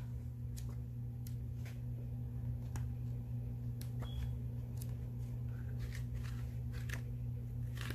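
Paper pages of a notepad being leafed through and handled: faint rustles and light ticks scattered throughout, over a steady low hum.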